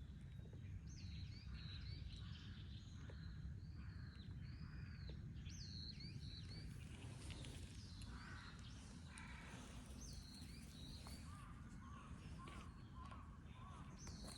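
Birds calling over and over with short, high swooping notes, over a steady low outdoor rumble.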